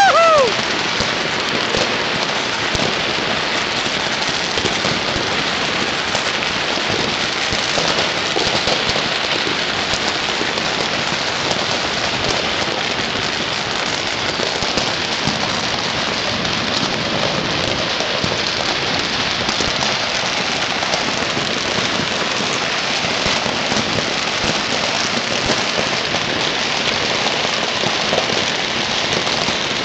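Dense, continuous crackling of countless firecrackers and fireworks going off across the city, merging into a steady hiss of rapid pops. Right at the start a short falling whistle from a firework is the loudest moment.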